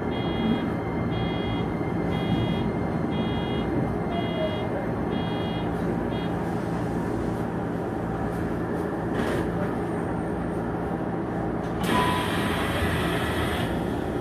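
Shizuoka Railway electric train running out of a station, heard from inside the cab: a steady rumble of motors and wheels on the track. Over the first six seconds a repeating warning chime sounds about twice a second, then stops. Near the end there is a short burst of hiss.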